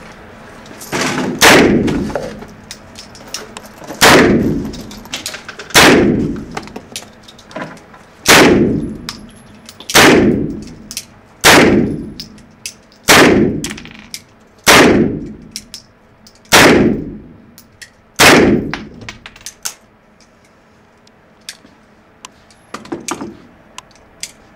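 Heckler & Koch MP5 submachine gun fired in single shots, about eleven, one every one and a half to two seconds, each ringing out in the echo of an indoor range. Near the end, a few light metallic clicks and clatters.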